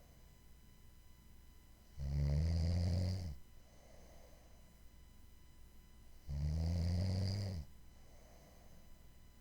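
Snoring: two loud, low buzzing snores, each about a second and a half long and some four seconds apart, with a faint breath between them.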